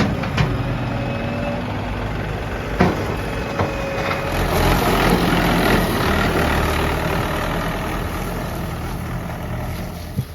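Diesel engine of a JCB 3DX backhoe loader running steadily while it loads mud, with a few sharp metal clanks.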